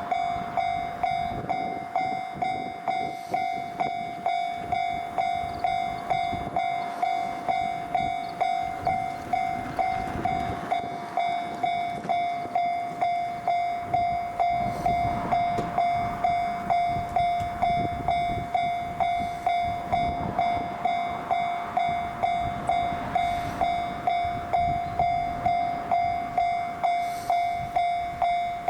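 Level-crossing warning bell ringing steadily, an electronic ding repeating about one and a half times a second, while a train hauled by a JR Freight EF510 electric locomotive runs over the crossing with a rumble and wheel clatter underneath.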